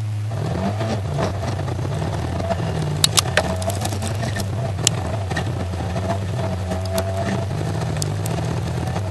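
Rallycross Supercar's engine heard from on board under racing load, its pitch rising and falling with throttle and gear changes. A few sharp clicks come about three and five seconds in.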